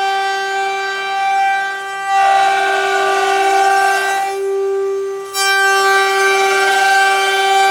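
Multi-spindle (six-head) CNC carving machine running, its spindles giving a steady high whine. From about two seconds in, a louder noisy cutting sound joins it as the bits work the material; this dies away briefly just past the middle and comes back sharply.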